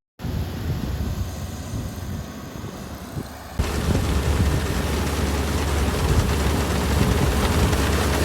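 Kubota rice combine harvester running under load: a steady engine rumble under a wide mechanical roar. It cuts in abruptly and grows suddenly louder about three and a half seconds in.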